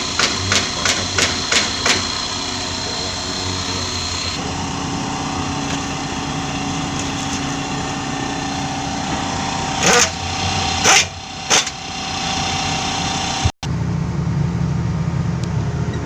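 An engine running steadily, with a row of regular clicks in the first two seconds and three short loud blasts of noise about ten to twelve seconds in. The sound cuts out abruptly near the end and comes back as a lower, steady engine hum.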